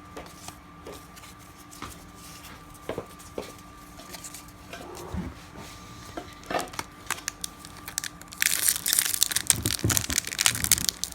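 A baseball card pack's wrapper being torn open and crinkled, loud and crackling from about eight seconds in, after a few soft clicks of cards being handled.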